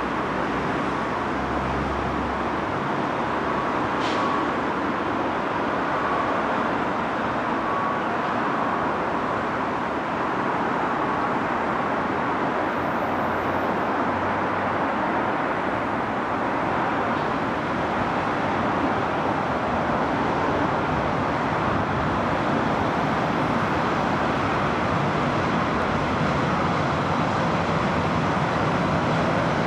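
Steady rumble of a Tyne and Wear Metrocar electric train approaching along the track, blended with road traffic, growing slightly louder.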